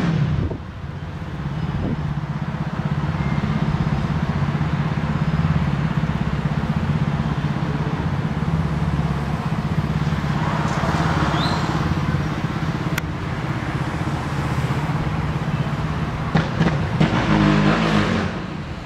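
Steady low engine hum, with traffic-like noise swelling about ten seconds in and a faint short high chirp near the middle.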